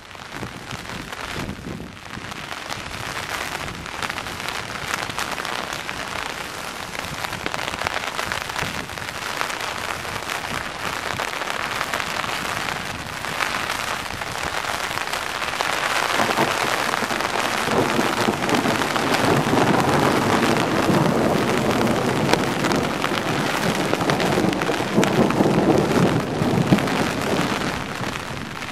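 Steady heavy rain, with drops striking an umbrella held just over the recorder. The rain grows louder and fuller about halfway through.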